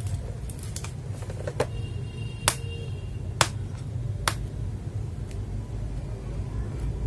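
Sharp plastic clicks and taps, four of them about a second apart, as a plastic box of keyboard switches is handled and opened, over a steady low hum.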